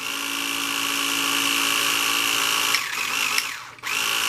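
Small electric motor of a Carrera Digital 1/24 slot car (Porsche 911 RSR) running with a steady high-pitched whine; about three seconds in the pitch sags and it nearly cuts out, then it spins back up.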